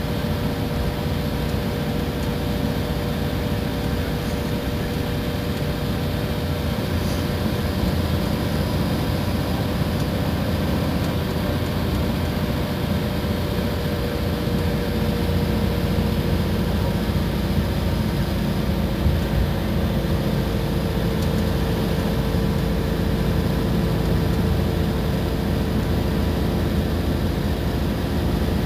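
Iveco Crossway bus running steadily: a constant low engine and road drone with a faint steady whine held on one pitch throughout.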